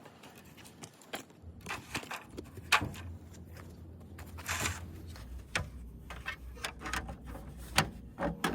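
A series of irregular clicks and knocks, like parts and tools being handled, over a low steady hum that starts about a second and a half in.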